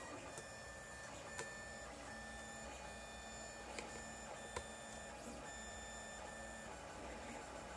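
Lulzbot TAZ 5 3D printer printing: its stepper motors whine in several steady pitches as the print head and bed move, stopping near the end. A few light clicks are heard along the way.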